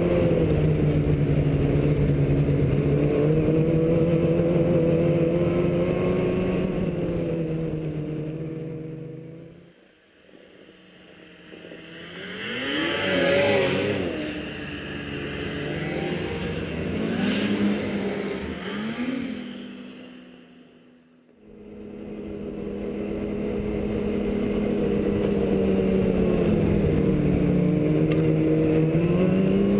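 Snowmobile engine running steadily under way, heard from on board the sled. The sound fades out about a third of the way in. It comes back as snowmobiles approaching and passing, their engine pitch rising and falling. It fades again about two-thirds of the way in, and then the steady onboard engine returns.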